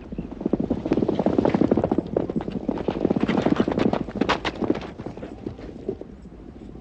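Horses galloping on sandy ground: a fast, dense drumming of hoofbeats that is loudest in the middle and dies away near the end.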